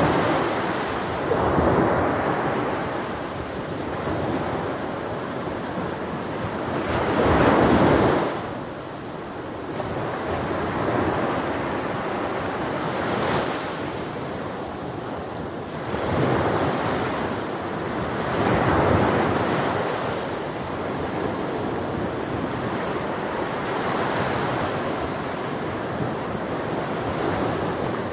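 Ocean surf breaking on a beach, a steady wash of noise that swells with each wave every few seconds and then draws back; the biggest surge comes about a third of the way in.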